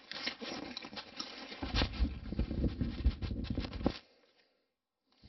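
Handling noise: the camera's microphone rubbing and knocking against clothing, a dense scratchy rustle with low thumps that cuts off suddenly about four seconds in.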